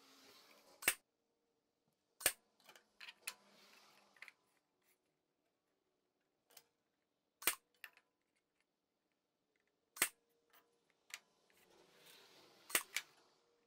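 Ryobi cordless brad nailer shooting brad nails into cedar boards to tack a butt joint. There are about six sharp snapping shots at uneven intervals, some with a soft hiss just before, and lighter knocks from the boards being handled between them.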